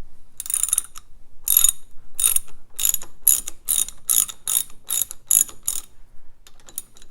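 Socket ratchet clicking in quick back-and-forth strokes, about two a second, while it undoes the loosened oil pump retaining nuts. The clicking pauses briefly near the end.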